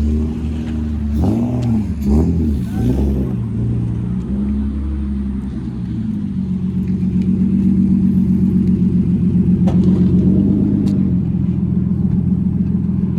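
Car engine revving up and down several times in quick blips, then held at a steady, slowly rising speed for several seconds before dropping back.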